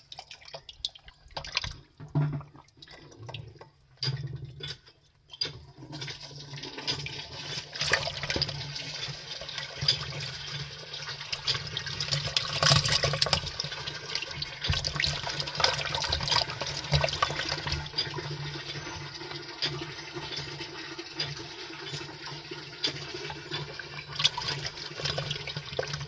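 Water splashing and sloshing as a bucketful of small catfish wriggle and thrash in shallow water in a plastic tub. Separate splashes at first, then from about six seconds in a continuous wet churning.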